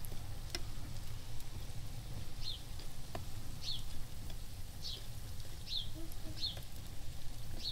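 Pastries frying in oil in a pan, with a light sizzle and a couple of sharp clicks from metal tongs. A bird repeats a short, high, falling chirp about once a second from about two seconds in.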